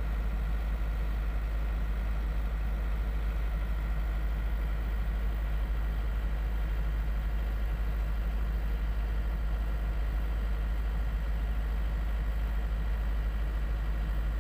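Tugboat's diesel engine running steadily as a deep drone, heard up close from on board the tug while it tows a container ship off its berth.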